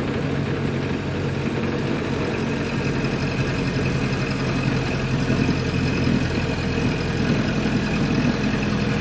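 Ford Model A's four-cylinder engine running steadily as the car is driven, a little louder in the second half.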